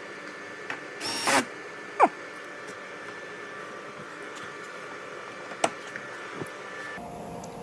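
Plastic car door trim being handled and pressed back onto its pins: a brief scraping rustle about a second in, a short falling squeak just after, and a few small clicks.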